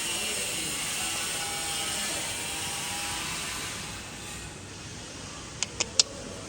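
Steady hiss of background noise that drops away about four seconds in, followed near the end by three sharp clicks in quick succession.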